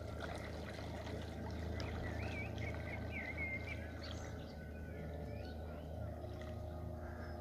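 Small birds singing and chirping in short warbling phrases over a steady low hum.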